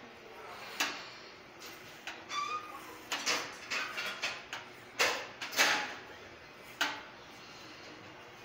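Scattered sharp clicks and brief rustles, clustered about three to six seconds in, over steady room noise.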